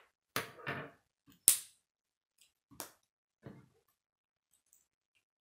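Plastic K'nex pieces clicking and knocking against a wooden tabletop as they are handled, set down and picked up: several separate clicks, the sharpest about one and a half seconds in.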